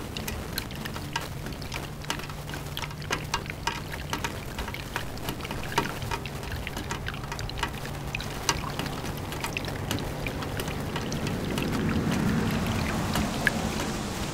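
Rain falling, with many separate drops striking close by over a steady wash. It grows heavier around twelve seconds in.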